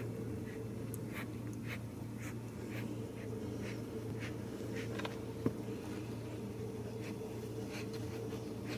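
Young Ragdoll kittens giving short, faint hisses, many of them scattered through, over a steady low hum. A single sharp click sounds about halfway through.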